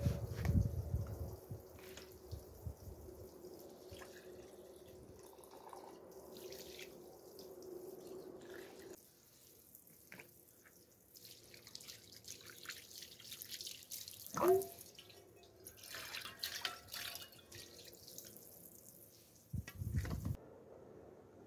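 Water dripping and trickling off a freshly washed raw whole chicken as it is handled and set into a plastic colander, with small wet clicks and splashes. A short squeak about two-thirds of the way through and a dull thump near the end.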